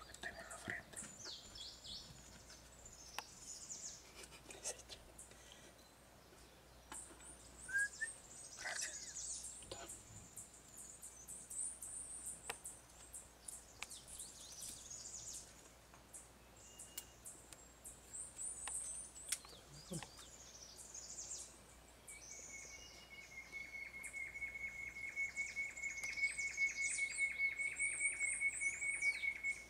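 Wild forest birds calling: many short, high-pitched chirps and quick sweeping notes, and over the last eight seconds or so a steady, rapid trill at a middle pitch that stops suddenly.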